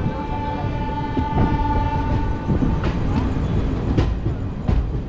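A train horn sounds one steady tone for about two and a half seconds over the rumble of a moving train. Later come a few sharp clicks of wheels passing over rail joints.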